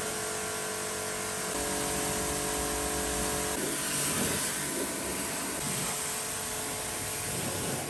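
High-pressure washer spraying water onto a car's bodywork, a steady dense hiss of spray rinsing off the wash foam. A steady hum sits under the hiss for the first few seconds.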